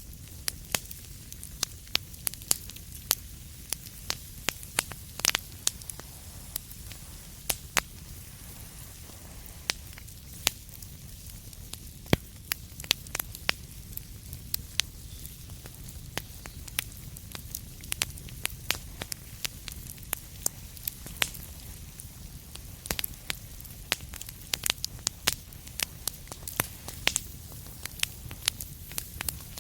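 Wood fire crackling in a fireplace: irregular sharp pops and snaps, some in quick clusters, over a steady low rumble of the burning fire.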